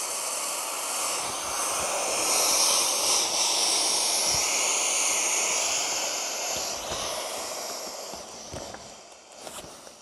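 Air rushing out of the large open valve of an Intex Explorer K2 inflatable canoe as the folded hull is pressed flat: a steady hiss that swells about two seconds in and fades away over the last few seconds as the last air is squeezed out.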